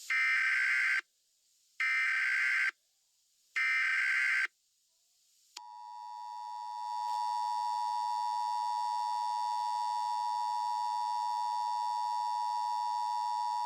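Emergency Alert System opening: three short bursts of warbling digital data tones (the SAME header), each about a second long with brief gaps between. Then the steady two-tone EAS attention signal swells up and holds.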